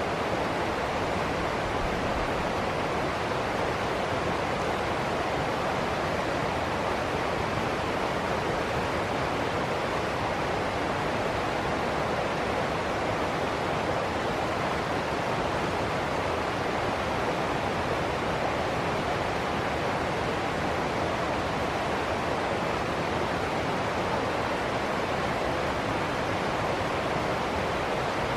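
Steady rushing water, an even unbroken hiss without surges.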